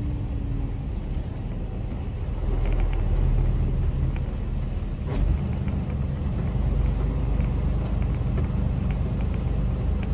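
Low rumble of a Mercedes Actros lorry's diesel engine heard from inside the cab as the truck creeps through deep standing water, growing louder about two and a half seconds in. A single knock about five seconds in.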